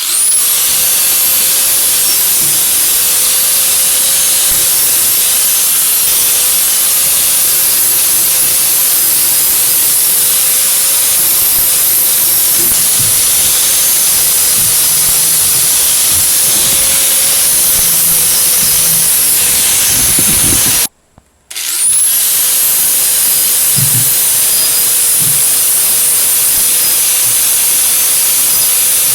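Electric angle grinder spinning up with a rising whine and running steadily, grinding metal on a bike-frame motor mount to prep it for welding. About two-thirds of the way through it stops briefly, then spins up again.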